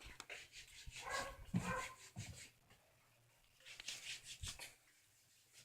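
A dog vocalising faintly in two short spells, about a second in and again around four seconds in.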